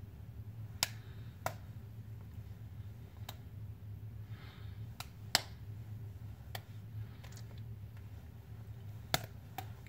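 Sharp clicks at irregular intervals, about eight of them, the loudest about halfway through, over a low steady hum.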